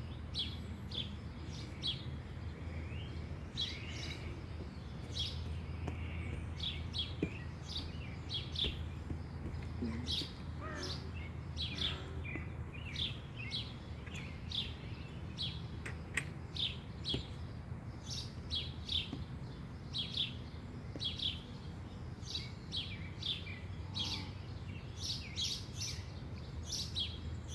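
Birds chirping, many short high chirps a second or so apart, over a steady low background hum.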